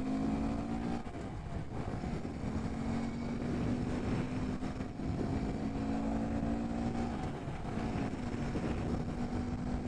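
2018 Honda Grom's 125 cc single-cylinder engine running at high revs as the bike cruises in traffic, a steady engine note over low wind rumble. The note eases briefly about seven seconds in, then picks back up.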